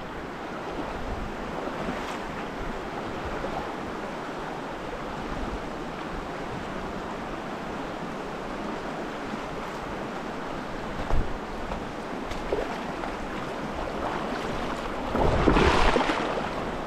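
A mountain stream's water rushing steadily, with a short knock about eleven seconds in and a louder surge of noise near the end.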